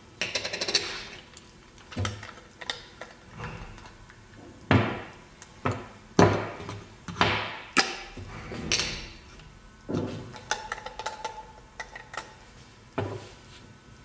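Grinder parts, steel bodies and their caps, being handled and set down on a wooden table: a run of irregular knocks and clicks with short scraping sounds between them.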